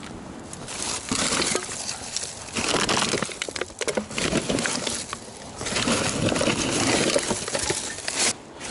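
Hands rummaging through a recycling bin: dry leaves and plastic bags rustling and crackling, with bottles knocking and clinking among them. It stops abruptly near the end.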